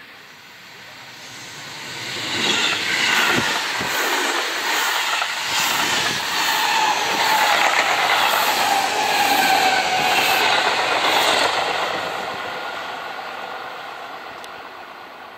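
Seibu Railway electric commuter train passing close by, its wheels clacking over rail joints in a steady rhythm, with a whine that falls in pitch as it goes past. The sound builds as it approaches and fades away as it recedes.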